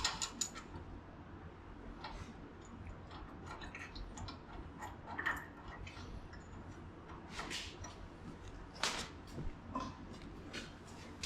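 Scattered clicks and clinks of hand tools working on the truck's front suspension while the shocks are unbolted, a few louder knocks near the end, over a steady low hum.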